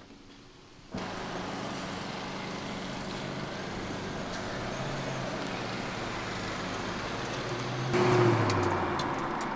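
Mercedes-Benz S-Class sedan's engine running steadily, then growing much louder about eight seconds in as the car pulls away, before easing off as it moves off.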